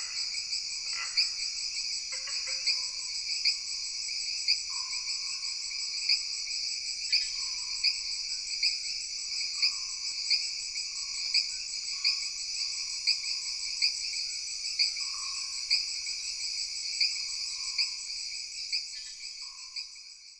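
Jungle night chorus: insects trilling steadily in high-pitched drones, with a sharper pulse about every three quarters of a second, and frogs giving short repeated calls about once a second underneath. It fades out near the end.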